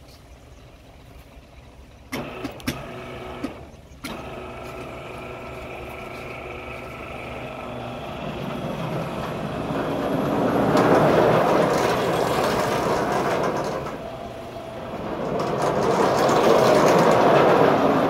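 Carriage-mounted sawmill circular saw driven by an electric motor: a steady motor hum after a few clicks, then from about eight seconds the blade cutting lengthwise through a log. The cutting is loud in two long stretches with a brief dip between.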